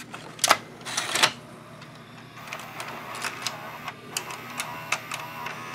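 Sony SLV-595HF VCR's cassette loading mechanism: a few plastic clacks at the cassette door, then a small motor whirring with a run of clicks as the mechanism moves.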